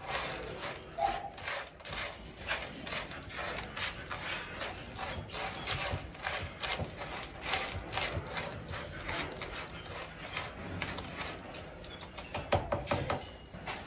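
A spoon stirring wet and dry dog food together in a feed pan: irregular clicks, knocks and scrapes, several a second.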